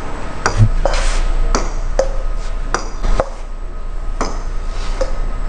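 Table tennis rally: the ball clicking off the paddles and bouncing on the table, about one hit every half second.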